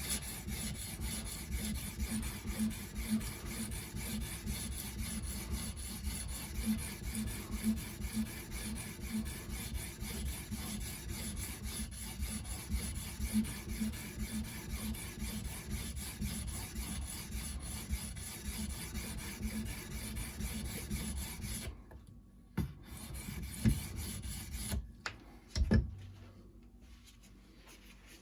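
Edge Pro 300-grit diamond matrix stone stroked back and forth along a steel knife edge, a steady rasping scrape. The strokes stop about 22 seconds in, followed by a few sharp knocks.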